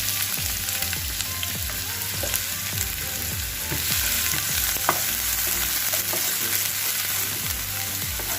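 Chopped onion sizzling steadily in hot ghee in a frying pan, with scattered short clicks throughout.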